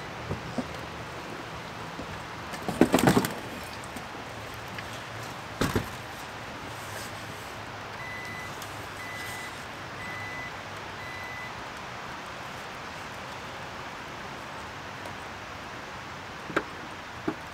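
A folding wheelchair clattering as it is lifted into the cargo area of a Jeep SUV, followed by a single knock. A run of four short, even beeps from the Jeep's power liftgate as it closes, then a sharp knock near the end as the gate latches.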